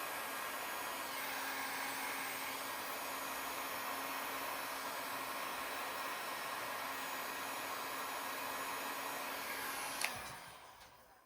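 Hot-air blower running steadily with a low hum. About ten seconds in it is switched off with a click and winds down.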